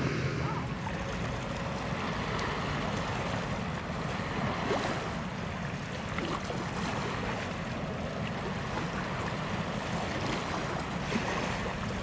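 Steady wash of sea water and wind, with wind buffeting the microphone. A low shipboard rumble cuts off just after the start, and the sound fades out at the very end.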